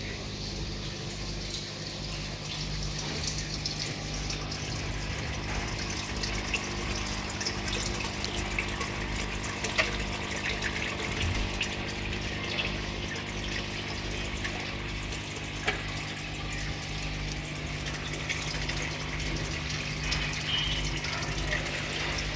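Aquarium water trickling and splashing steadily through an overhead filter box of filter media, over a steady low hum of the pump. Two sharp clicks stand out, about ten and sixteen seconds in.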